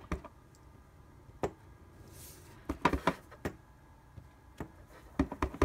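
Clear acrylic stamp block tapped onto an ink pad and pressed onto paper: a scatter of light knocks and taps, several in quick succession about three seconds in and another group near the end.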